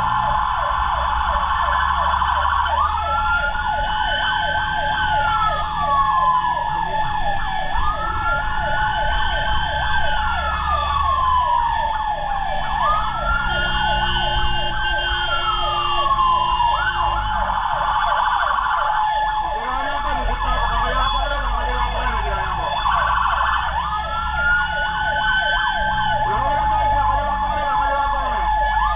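Several emergency sirens from responding fire trucks sounding together: a wail that rises and slowly falls about every five seconds, over a fast-pulsing siren and a steady high tone, with a truck engine rumbling underneath. Partway through, the wail pauses and a tangle of warbling siren tones takes over for a few seconds.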